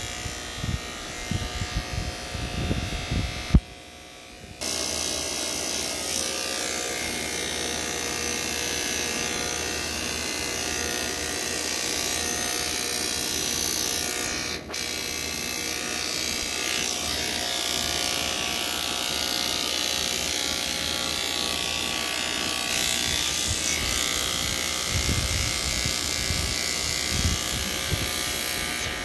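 Electric hair clippers buzzing steadily as they shave hair off a head. The hum cuts out for about a second near four seconds in, then starts again.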